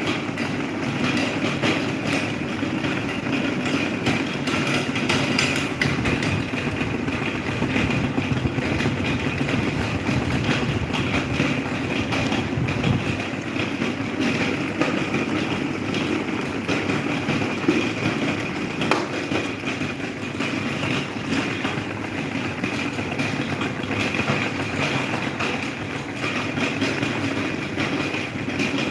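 Electric table fan running steadily, its motor and blades making a constant whirr with frequent small clicks and rattles.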